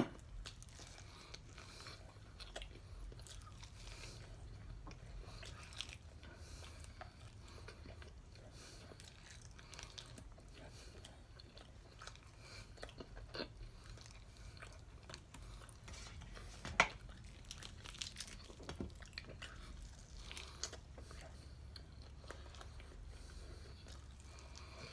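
Quiet chewing and biting of sauced whole chicken wings, with small crunches and mouth clicks and one sharper click about 17 seconds in.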